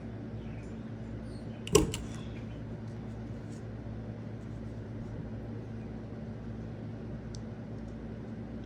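A single sharp snap from a Crop-A-Dile hole punch biting through a paper tag, about two seconds in, over a steady low electrical hum.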